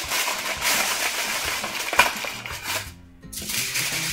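Aluminum foil crinkling as it is pressed and crimped down over the rim of a metal roasting pan, with one sharper crackle about two seconds in. The crinkling stops about three seconds in, with background music underneath.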